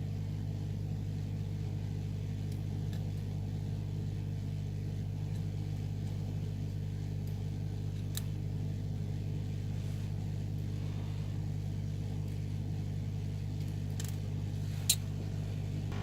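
Soldering station running with a steady low hum, with a few faint clicks and one sharper tick near the end.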